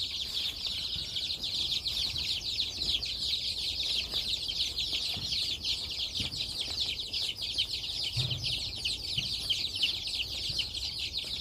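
A brood of young chicks peeping continuously, many high, overlapping peeps that each fall in pitch.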